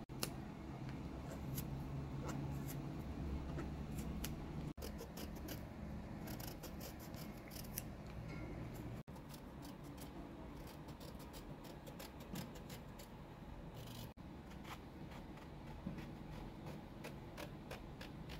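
Kitchen knife peeling strips of skin off eggplants: runs of short, sharp cutting and scraping strokes through the peel, briefly cut off three times.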